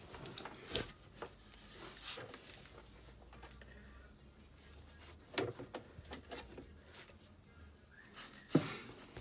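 Scattered light metallic clicks and taps of a wrench on the bolts of an ATV's foot-brake master cylinder as it is unbolted from the frame, with a sharper knock near the end.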